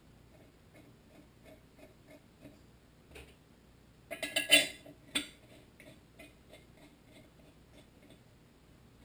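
Steel head bolts being handled and threaded by hand into a small engine's cylinder head: a brief flurry of sharp metallic clinks about halfway through, over a faint steady ticking of about three ticks a second.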